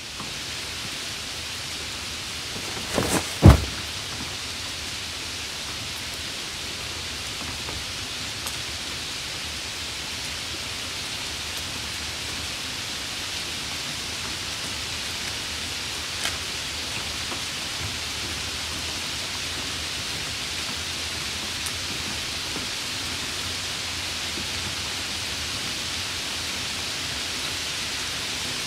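Steady heavy rain, an even hiss throughout. About three seconds in comes a short cluster of sharp cracks, the last and loudest about half a second after the first.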